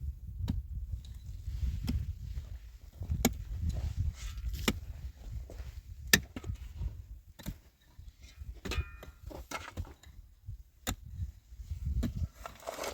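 Sharp knocks at a steady pace, a stroke about every second and a half, like a tool chopping or striking, over a low rumble.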